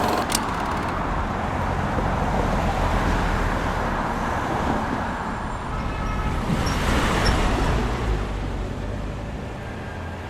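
A motor vehicle running and driving, a steady rumble and rush of road noise that swells about seven seconds in and then fades.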